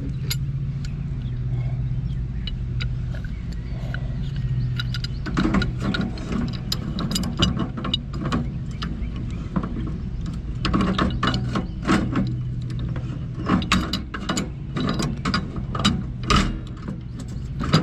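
A ratcheting, metallic clicking starts about five seconds in and comes in clusters as threaded galvanized gas pipe and fittings are worked with tools. A steady low hum runs underneath.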